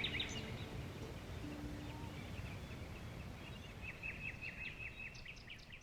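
Small birds chirping over a low, steady outdoor rumble, with a quick run of short high chirps, about six a second, near the end.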